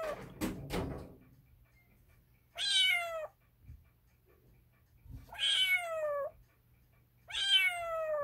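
Long-haired calico kitten meowing three times, about every two and a half seconds, each a high call that falls in pitch. A brief rustle with a few clicks comes in the first second.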